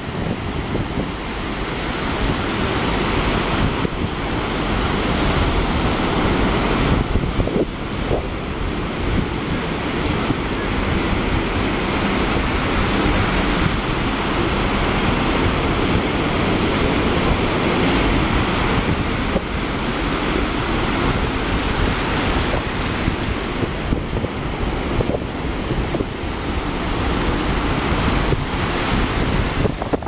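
Shallow surf washing up and back over wet sand at the water's edge, a steady wash with gentle swells, with wind buffeting the microphone.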